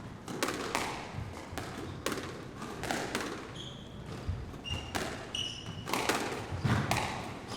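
Sports hall ambience: balls bouncing on the court floor with repeated thuds, and a few short high squeaks about halfway through, typical of sneakers on the floor.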